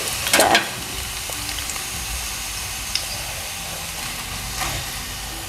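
Pempek fish cakes frying in hot oil in a pan: a steady sizzle, with a brief scrape of the metal skimmer in the pan about half a second in.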